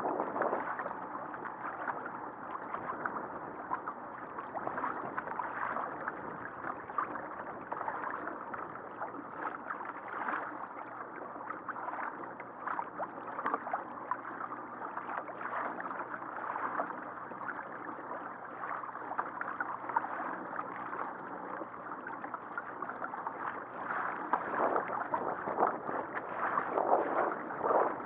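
Water splashing and sloshing against a kayak hull as it moves under way, with a faint steady low hum underneath from the electric trolling motor. The splashing grows a little louder near the end.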